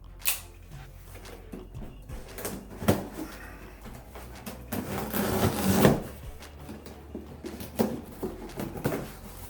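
A heavy cardboard shipping box being handled and opened: scattered knocks and clunks, with a longer scraping rustle about five to six seconds in.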